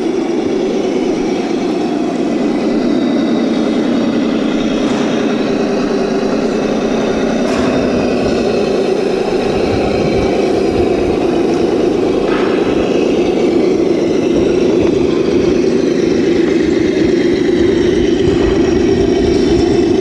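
Radio-controlled Axial rock crawler's electric motor and geared drivetrain running steadily as it crawls over rock, with a few light knocks.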